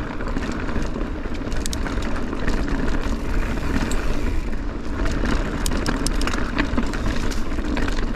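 Mountain bike riding along a narrow trail: a steady rush of wind on the microphone with tyre noise, and scattered clicks and rattles from the bike and stones underneath.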